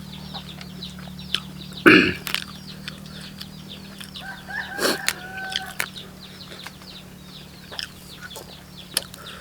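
Chickens: a continuous run of quick, high cheeping, with a longer drawn-out call from about four to six seconds in. Underneath runs a steady low hum, with scattered clicks and a louder knock about two seconds in.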